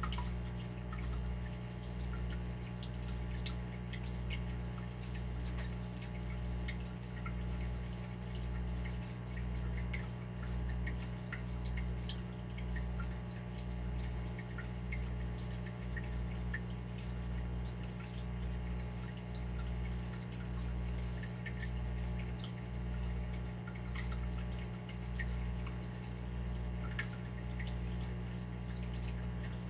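Water dripping, small drops falling irregularly, over a steady low hum that swells about once a second.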